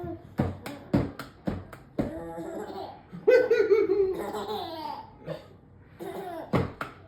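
Baby laughing hard in a string of short bursts, with one longer falling peal of laughter about three seconds in.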